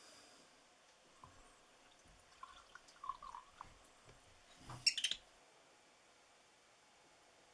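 Faint small clicks and knocks, with a brief louder clatter of sharp clicks about five seconds in, over quiet room tone.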